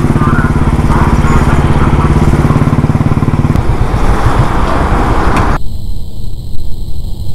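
Royal Enfield Classic 350's single-cylinder engine running with its even, pulsing beat at low speed, then pulled harder as the bike rides away, with growing road and wind noise. About five and a half seconds in the sound abruptly turns dull and filtered.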